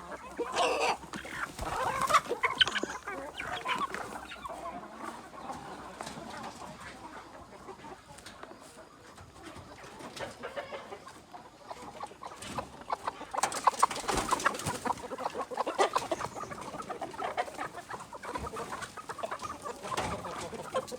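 Flock of crossbred Bangkok free-range chickens clucking, in many short overlapping calls, busiest early on and again from about halfway through.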